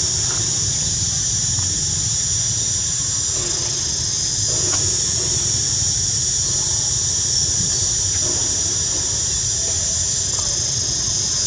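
Steady high-pitched drone of a forest insect chorus over a low rumble, with a few faint short sounds mixed in.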